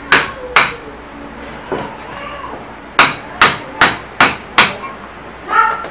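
Hammer blows on a metal punch held against the end cover of a small finned electric motor, metal on metal, knocking the cover loose to take the motor apart. Two blows near the start, then a run of five quick blows about three seconds in.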